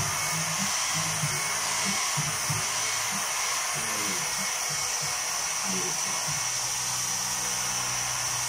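Handheld hair dryer blowing with a steady rush, drying a fresh layer of water-based ink printed on nylon umbrella fabric.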